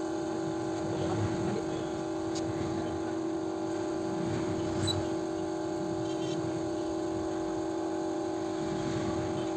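A steady, unbroken machine hum at one pitch, over a low rumble of background noise.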